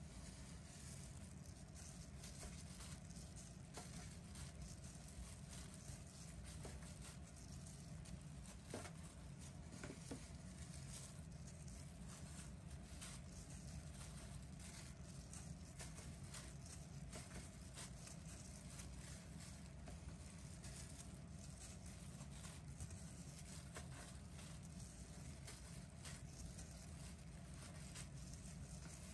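Faint soft taps and light plastic rustling as pieces of chiffon cake are set down one by one on a metal baking tray by hands in plastic gloves, over a steady low hum.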